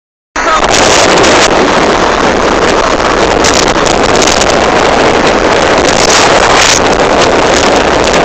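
Loud, steady wind rush buffeting the microphone from a moving vehicle, with engine and road noise underneath.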